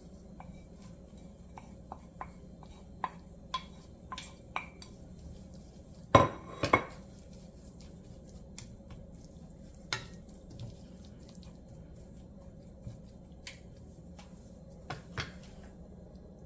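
Kitchen utensils clinking against a cooking pot and dishes while vegetables are added: scattered light taps, with two louder knocks about six seconds in and another near ten seconds.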